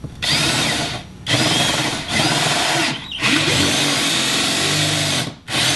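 Cordless drill with a 5/8-inch bit boring a hole through a golf cart's floorboard, run in about five bursts of one to two seconds with short pauses between, until the bit goes through.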